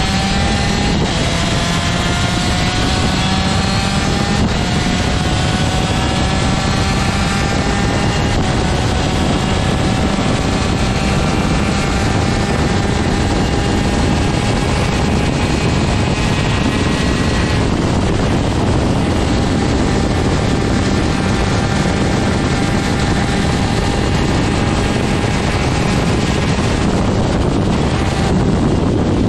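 Superkart's 125cc two-stroke TM gearbox engine running at racing speed. Its pitch climbs steadily and steps down at each gear change, over a constant rush of wind noise.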